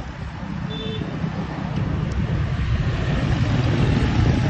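Road traffic: cars and motorbikes passing close by, a steady rumble of engines and tyres that grows slowly louder, with a short faint tone about a second in.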